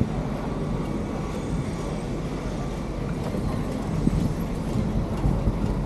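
Steady wind rush and low rumble on the microphone of a camera riding along on a moving bicycle, with tyre noise from the asphalt.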